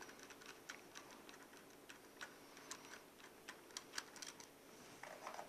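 Faint, irregular small clicks and ticks of a screwdriver backing out the small egress screw from a mortise lock case.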